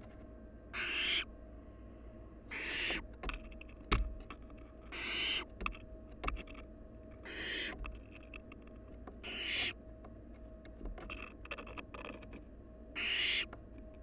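Barn owl nestlings giving six raspy hissing calls, each about half a second long and roughly two seconds apart: the food-begging hiss of young barn owls. Between the calls come light scratches and clicks of the owlets shifting in the nest box, with one sharper click about four seconds in.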